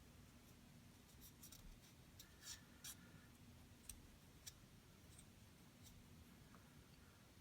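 Faint scratching and a few light ticks: a cotton swab soaked in bore solvent scrubbing inside a CZ52 pistol slide's firing-pin channel.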